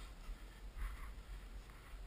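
A hiker's footstep crunching in snow about a second in, over a low steady rumble on the microphone.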